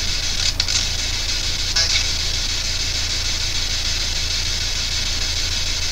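Steady radio static hiss from a P-SB7 ghost box scanning, with a low electrical hum beneath and a couple of faint brief blips in the first two seconds.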